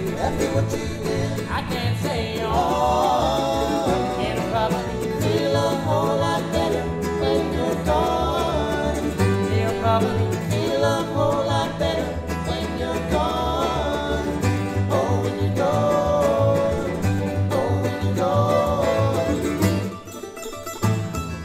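Bluegrass string band playing live: fiddle, mandolin, acoustic guitar and upright bass together, the bass plucking a steady low line. The sound dips briefly near the end before the band carries on.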